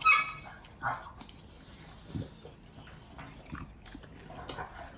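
An American Bully dog eating cooked meat from a bowl: chewing, smacking and snuffling, with scattered small clicks and a louder sound right at the start and another about a second in.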